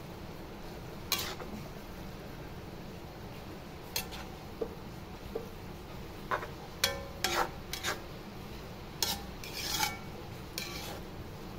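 Metal spatula scraping and clinking against a wok while tossing pansit noodles and vegetables: irregular knocks and scrapes, sparse at first and busier in the second half, with one longer scrape near the end.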